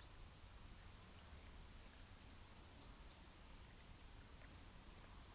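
Near silence: faint outdoor quiet with a few faint, brief high-pitched chirps.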